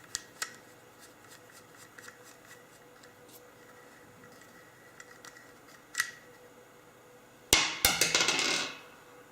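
A bolt being undone on a Honeywell water-pressure reducer: a few sharp metal clicks, then a louder metallic clatter and rattle lasting about a second, starting about seven and a half seconds in.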